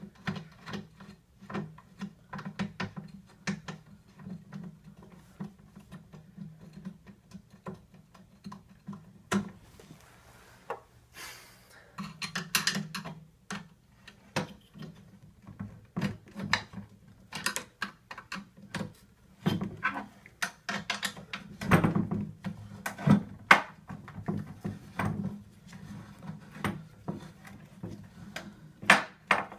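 Irregular metallic clicks, clinks and knocks of a nut being threaded onto a scooter's rear wheel axle bolt and tightened with hand tools, over a steady low hum, with a brief scrape about ten seconds in.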